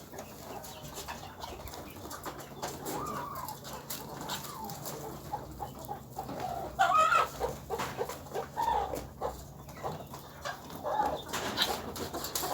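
Chickens clucking, short calls repeating, with one louder call about seven seconds in, over a scatter of short ticks.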